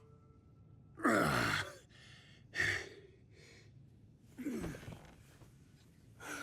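Heavy breathing after sex: a string of about five loud, breathy sighs and gasps, each falling in pitch, the loudest about a second in.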